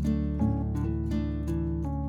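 Background music: plucked acoustic guitar playing chords with a steady pulse.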